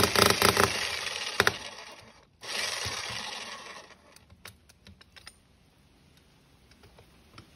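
Fujihama electric jackhammer hammering in rapid, even blows, about five a second, which stop within the first second as the tool runs down. After a cut, a short burst of noise fades away, followed by scattered light clicks and ticks.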